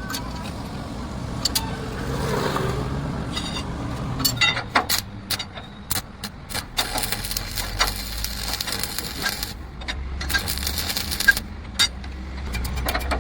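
Metal clanking and knocking from tool work on a truck's leaf spring suspension, over a low rumble, with two longer stretches of rushing noise in the second half.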